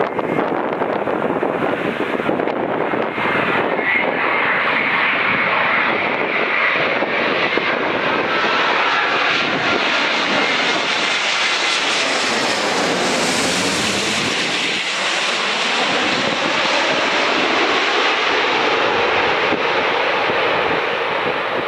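Airbus A350-900 airliner's Rolls-Royce Trent XWB jet engines on landing approach, passing low overhead. Steady jet noise carries a high whine for the first several seconds, turns hissier as the plane passes directly over about halfway through, then settles to a lower rumble as it moves away.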